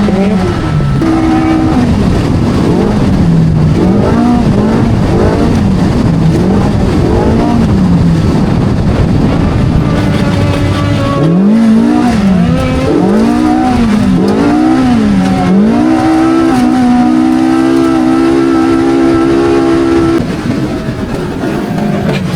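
Polaris RZR Pro R side-by-side race engine working hard on a hot lap. Its pitch rises and falls every second or two as the throttle is worked over rough terrain, then holds high for a few seconds before dropping to a lower steady note near the end.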